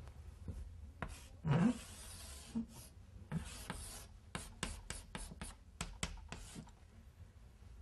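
Chalk drawing on a blackboard: two longer scraping strokes, then a quick run of short chalk strokes and taps near the end.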